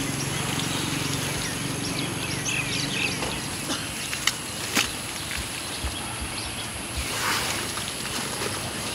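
Outdoor ambience with birds chirping, a low steady hum that fades after the first few seconds, scattered clicks and knocks, and a short hiss about seven seconds in.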